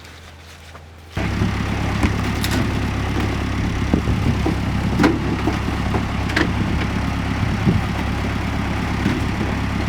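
Loud machinery running, coming in abruptly about a second in, with a strong low hum and a few sharp knocks over it.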